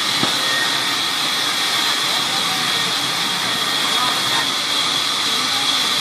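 Sawmill saw running steadily and cutting a rain tree plank that is fed along its table, a continuous high-pitched hiss.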